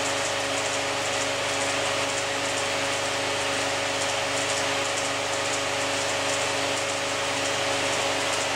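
A mechanical Nipkow-disk telecine running, with its Bauer P5 16mm film projector and spinning scanning disk. It makes a continuous whirring hiss with a steady hum under it.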